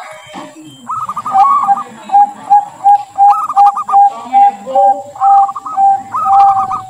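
Zebra dove (perkutut) cooing: a steady series of short, clipped coos, about three a second. A faster, higher trill comes in four short spells over the coos.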